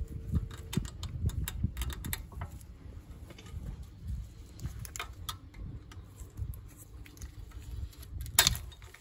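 Light metallic clicks and scrapes of a brake caliper anti-rattle spring being worked into place by hand on a Volvo V70's front brake caliper, with one sharper metallic clink near the end as a screwdriver is brought to it. Wind rumbles on the microphone underneath.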